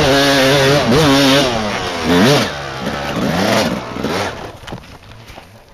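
Two-stroke 250 dirt bike engine revving up and down with the throttle, with a sharp rev about two seconds in. The engine sound then falls away over the next couple of seconds and becomes much quieter near the end.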